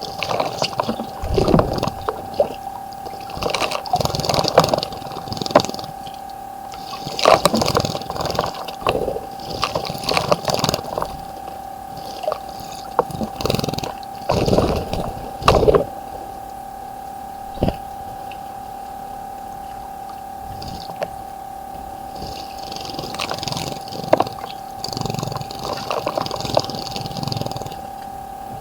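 Small birds bathing in a garden bird bath: irregular bouts of splashing in the water with short quiet gaps between them, over a steady tone that runs throughout.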